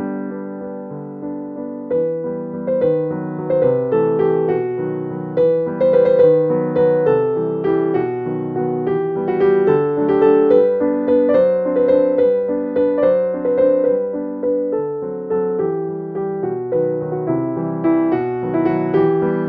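Background music: a gentle piano melody with chords, notes struck in an even flowing rhythm.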